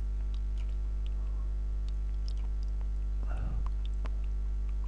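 Steady mains hum on the recording with faint scattered computer-mouse clicks. A brief low murmur or breath comes about three seconds in.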